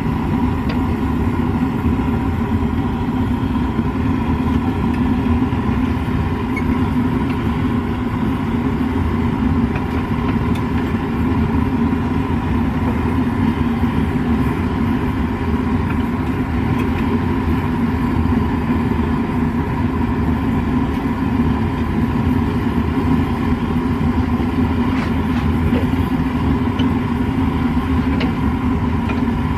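Propane gas forge burners running with a steady, even roar, unchanged throughout. A few faint clicks near the end.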